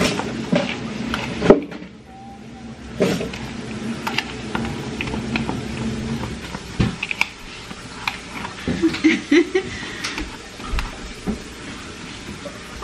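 A metal spoon scraping and knocking against a mixing bowl as a crumbly mixture is stirred, in irregular clicks, with a low steady hum that stops about halfway through.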